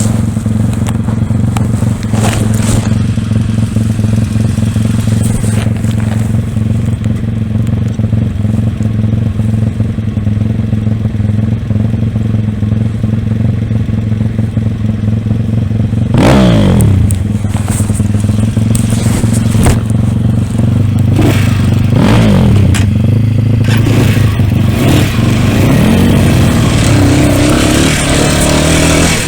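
Pit bike engine running at a steady speed, then revved hard several times from about halfway through, its pitch dropping after each burst.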